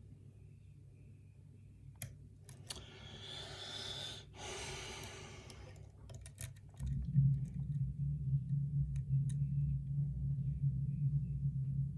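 Faint scattered clicks of a lock pick and tension wrench working the pins of a pin-tumbler challenge lock with spool pins. A long breath out comes about three seconds in, and about seven seconds in a steady low hum starts under the clicks.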